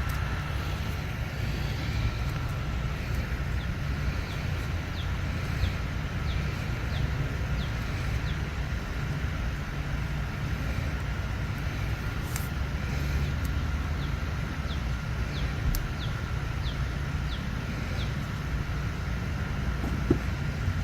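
Outdoor ambience: a steady low rumble with a faint steady high hum, while a bird repeats short, high, falling chirps about twice a second, in two runs.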